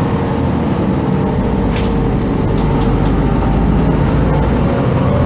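Inside a 1999 MAN NG312 articulated city bus under way: the diesel engine and drivetrain run steadily with a whine that slides slowly down and back up in pitch. The low rumble deepens about a second in.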